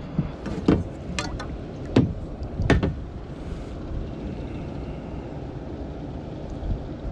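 Wind buffeting the microphone as a steady low rumble, with about five sharp knocks and clatters in the first three seconds.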